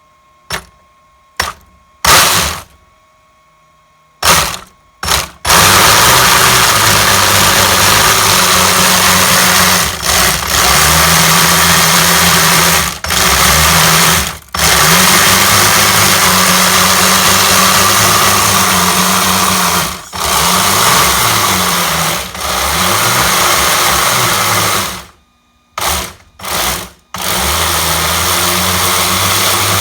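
RC snowmobile's battery-powered motor and drivetrain spinning the freshly rebuilt track: a few short throttle blips, then held running with brief let-offs, and more short blips near the end. The track is being run in and the gears checked.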